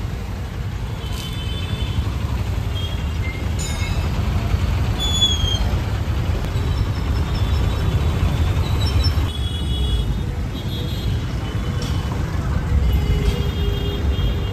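Busy street traffic: a steady low rumble of vehicle engines and passing motorbikes and cars, with short high tones here and there.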